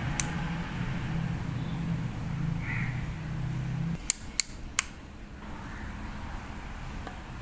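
A low steady hum that stops about four seconds in, with a sharp click near the start and three sharp clicks in quick succession just after the hum stops.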